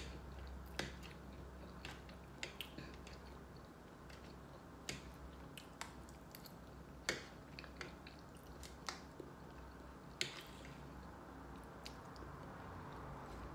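Quiet eating sounds: chewing, with scattered sharp clicks of a metal fork tapping and scraping on a glass plate, the loudest about 7 and 10 seconds in.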